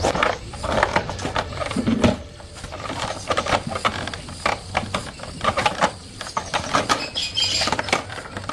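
Irregular clicks, taps and rattles, as of tools and small metal parts being handled during repair work, over a low steady hum.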